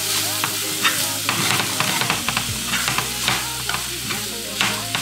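Plant-based ground meat sizzling in a hot frying pan while a wooden spatula stirs it, with repeated, irregular scraping strokes against the pan as the meat sticks a little.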